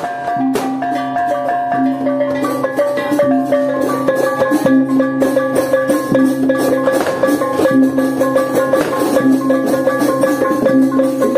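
Gamolan music: a repeating melody on a Lampung bamboo xylophone, with drum and percussion hits joining about two and a half seconds in and growing busier.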